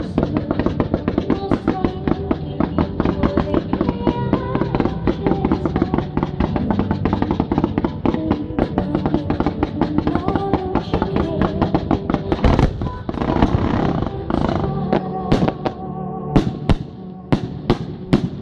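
Fireworks going off in quick succession over music, a dense crackle of many small bursts. Near the end this thins into a series of separate sharp bangs, about two a second.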